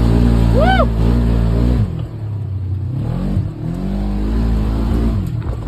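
Off-road vehicle engine running hard, then about two seconds in dropping back and revving up and down in a few rising-and-falling swells. A brief high rising-and-falling note sounds under a second in.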